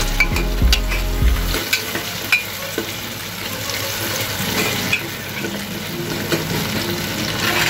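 Onions, green chillies and crushed ginger-garlic sizzling in oil in an aluminium pressure cooker, stirred with a steel ladle that scrapes and taps against the pot. A low hum underneath stops about a second and a half in.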